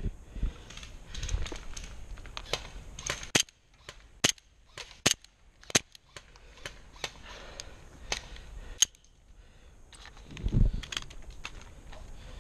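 Airsoft guns firing: scattered sharp cracks, single shots and short quick runs, at irregular intervals. A low thump about ten and a half seconds in.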